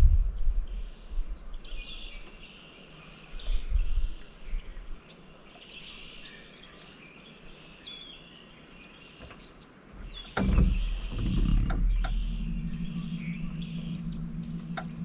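Small birds chirping and calling over still water, with a low rumble coming and going in the first few seconds. About ten seconds in, a few knocks are followed by a steady low hum that continues to the end.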